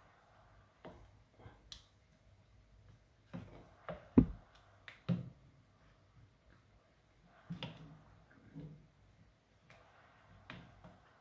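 A spoon stirring thick sauce in a stainless steel pot: scattered short knocks and scrapes against the pot, the loudest about four seconds in.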